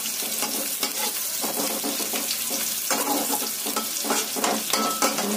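Sliced onions sizzling in a little oil in a metal kadhai, stirred with a flat metal spatula that scrapes and clicks against the pan. The onions are at the stage of just starting to brown.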